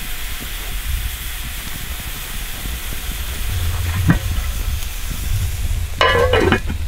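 Food sizzling in a cooking pan, a steady hiss, with a short knock about four seconds in and a brief voice near the end.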